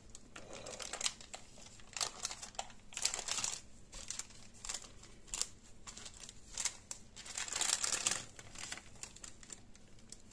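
Baking paper crinkling and rustling in short irregular bursts as gloved hands fold it over a log of raw minced meat and press it into shape.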